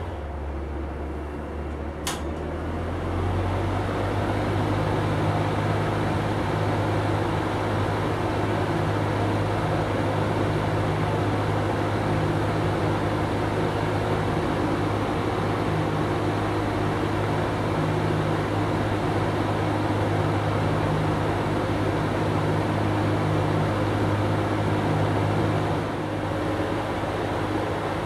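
Berns Air King 20-inch box fan running, a steady hum of motor and air from the blades. About two seconds in there is a click, after which the hum rises in pitch and gets louder, then holds steady.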